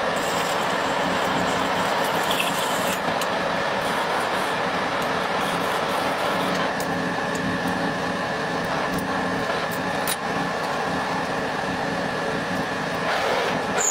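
Metal lathe running, a steady mechanical drone with a constant high whine, and scattered faint ticks.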